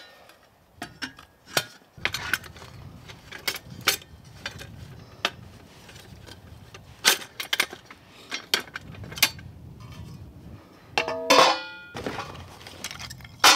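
Hard objects clinking and knocking together as camp gear is handled: a run of irregular sharp clicks, with a short squeaky scrape near the end.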